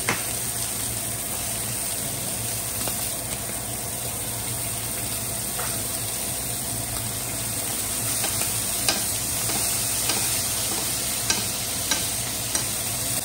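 Sirloin steaks with garlic and rosemary sizzling steadily as they sear in a frying pan, with a few sharp clicks in the latter part.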